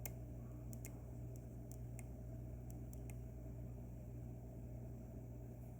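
Steady low hum of room tone, with a few faint light clicks in the first three seconds.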